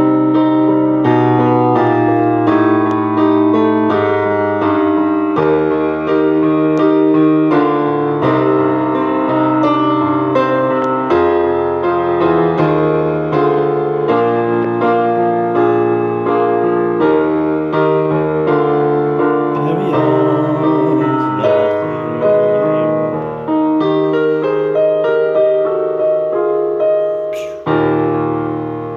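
Roland digital keyboard played with a piano voice: slow sustained chords over a low bass line, changing about once a second or so, dying away at the end.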